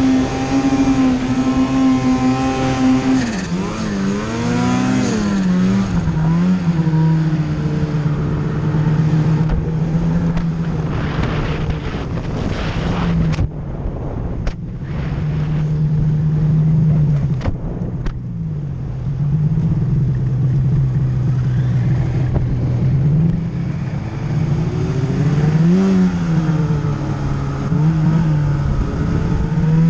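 Turbocharged Arctic Cat M8000 snowmobile's two-stroke twin engine running under throttle. It holds a high pitch, drops about three seconds in, then rises and falls repeatedly as the throttle is worked. A few sharp clicks come near the middle.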